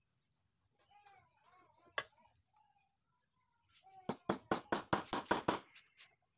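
A quick run of about ten sharp, short strokes, roughly seven a second for about a second and a half, from a hand working along the top of a wooden beam on a workbench. Before it come faint bird calls and a single sharp click.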